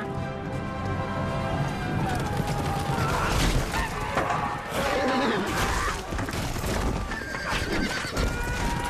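Horses whinnying in a cavalry battle, with pounding hooves and clashing over music.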